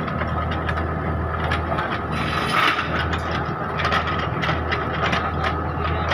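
Kubota mini excavator running, its diesel engine giving a steady low hum under a high whine, while the bucket works through crushed rock with irregular clanking and rattling.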